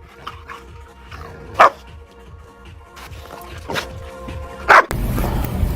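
A dog barking three times, single sharp barks a second or two apart, over soft background music. Near the end a louder steady noise comes in.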